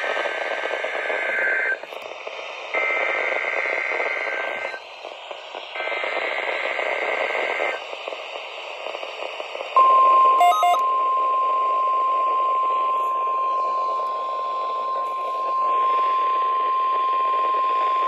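NOAA Weather Radio test tones through a Midland weather radio's small speaker. Three buzzy digital SAME header bursts of about two seconds each come first, with short gaps between them. About ten seconds in, a single steady alert tone starts and holds for about nine seconds. Together these make the Required Weekly Test of the alarm signals.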